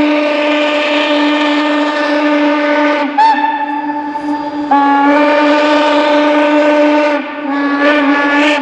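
Steam locomotive whistle blowing a long, steady blast. It breaks off about three seconds in with a short toot, sounds again in a second long blast, and ends with shorter toots near the end.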